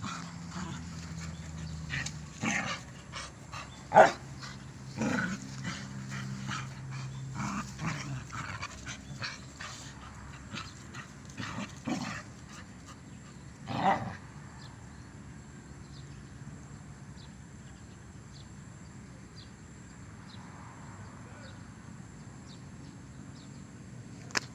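Two dogs play-fighting, with a string of short, sharp sounds from the scuffle. The loudest come about four seconds and fourteen seconds in, and it settles down after that.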